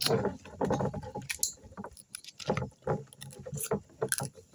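Crab shells being cracked and picked apart during a meal: irregular sharp cracks, clicks and knocks.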